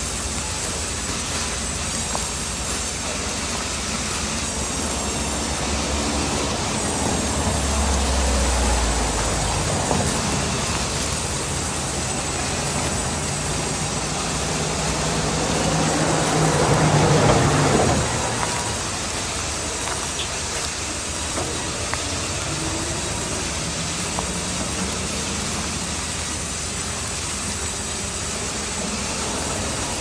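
Large band saw running in a sawmill while a log is fed through it by hand, a steady mechanical noise. The noise swells to its loudest and then drops suddenly about two-thirds of the way through.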